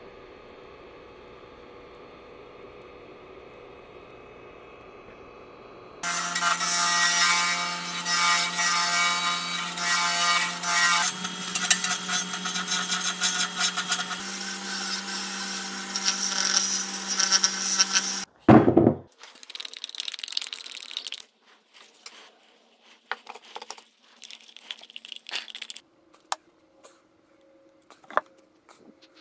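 Wood lathe spinning a resin-and-golf-ball blank while a hand-held gouge cuts it: a loud harsh scraping over steady tones from the spinning piece, the pitch shifting twice as the cut moves. After a faint steady hum at the start, the cutting begins about six seconds in and stops suddenly at a loud thump, followed by scattered small scrapes and clicks.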